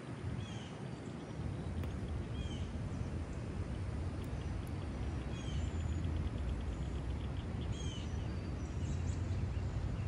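Outdoor ambience: a steady low wind rumble on the microphone, with a bird giving a short down-slurred call every two to three seconds.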